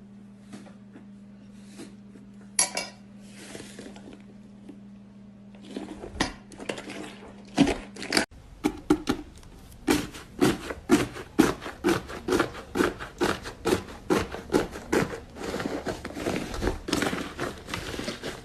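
Slime being squeezed and pressed by hand, giving a long run of sharp, wet clicks and pops, about two a second, crowding closer together near the end. Before this, for the first several seconds, there is only a faint steady hum with a few soft sounds.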